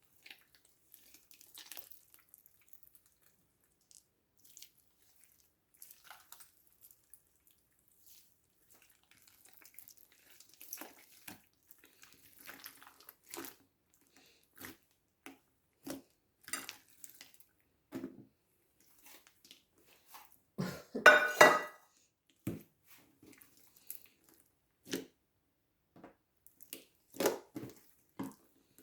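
Slime being squished and handled: scattered short, wet, sticky clicks and squelches, with a louder cluster of crackling squishes about two-thirds of the way through.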